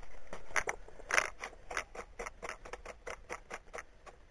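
A steady run of faint, short clicks, about four a second, evenly spaced.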